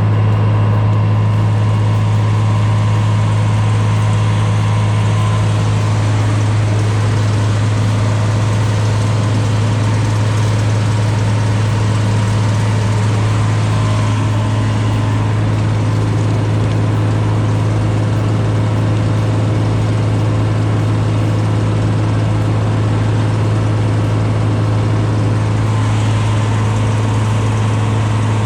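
Heavy diesel engine of road-paving machinery running steadily at a constant speed, a loud low drone with no change in pitch.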